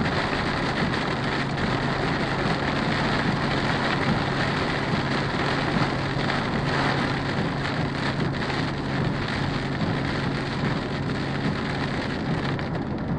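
Heavy rain pelting a car's windshield and roof, heard from inside the moving car, with a steady low drone of engine and road noise underneath.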